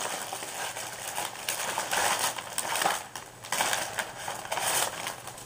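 Paper and packing material rustling and crinkling as hands rummage inside a cardboard shipping box, in several uneven swells.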